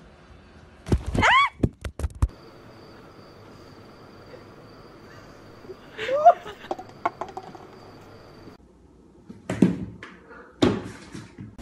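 A cat leaping against a wooden door, hitting it with two dull thumps about a second apart near the end. Earlier there is a short rising cry about a second in, followed by a few sharp knocks, and a second short rising cry about halfway through.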